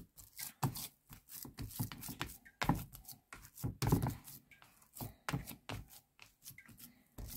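Hands kneading and squeezing a soft mashed potato and shredded chicken croquette mixture in a plastic bowl: an irregular run of short, soft squelches and pats.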